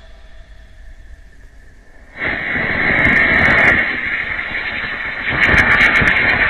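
A ground firework spraying sparks: a loud rushing hiss with crackles that starts suddenly about two seconds in and gets louder again past five seconds.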